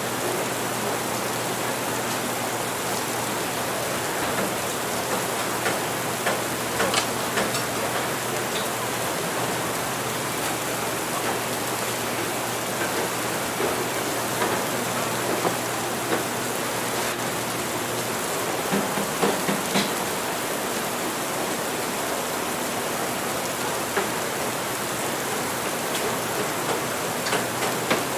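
Steady heavy rain falling, an even hiss, with scattered light clicks and taps, a few of them bunched together about two thirds of the way through.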